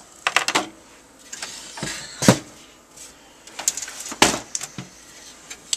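Knocks and clatter of hard objects being handled and set down on a desk, with a loudest thump a little past two seconds in and another burst of clatter around four seconds.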